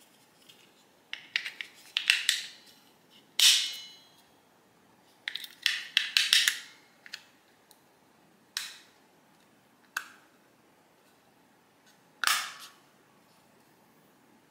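Sharp, irregular plastic clicks and snaps as AAA batteries are removed from and pressed into the plastic battery compartment of a YoLink temperature/humidity sensor, and its battery cover is pressed back into place. About a dozen separate clicks, some in quick clusters, the loudest about three seconds in and again near the end.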